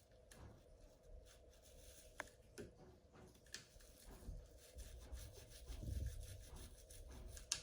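Faint rubbing with scattered light clicks as cleaning patches are worked around inside a rifle's action.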